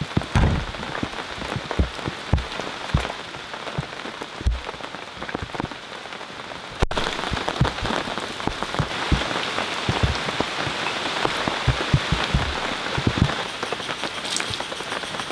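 Rain falling steadily, with large drops landing in irregular dull thuds. The hiss of the rain gets louder after an abrupt cut about seven seconds in.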